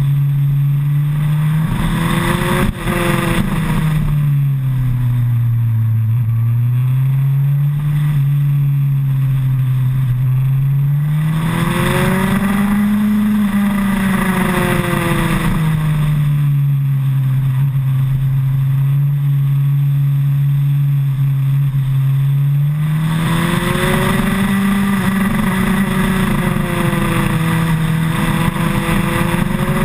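2008 Suzuki Hayabusa's inline-four engine running under a rider, its note dipping and climbing with the throttle, with a brief break about three seconds in. It gets higher and louder around twelve seconds in and again from about twenty-three seconds in.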